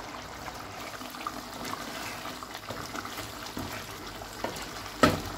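Chicken curry bubbling in a pot over a high flame as its leftover water boils off, with a wooden spoon stirring it and a loud knock near the end.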